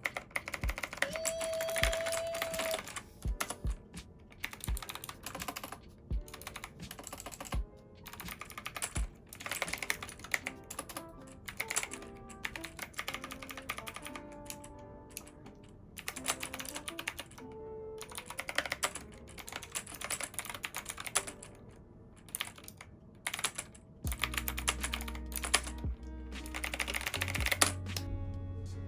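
Typing on a Knewkey Chic mechanical keyboard: a quick, irregular run of key clicks, over lofi background music.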